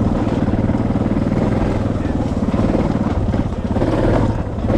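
Dual-sport motorcycle engine running steadily while riding.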